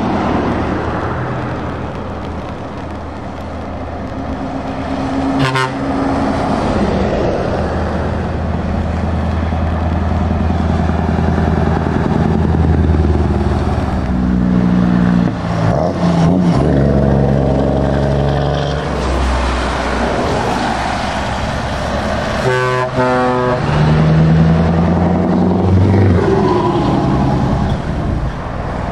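Heavy trucks driving past one after another on a wet road: diesel engines running and tyres hissing on the wet surface. A truck horn toots in a quick series of short blasts about three-quarters of the way through.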